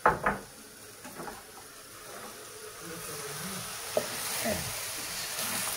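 Minced meat, onions and green peppers sizzling in a frying pan while being stirred with a wooden spoon. Two sharp knocks come right at the start, and the sizzle grows louder from about three seconds in, with a single click near the four-second mark.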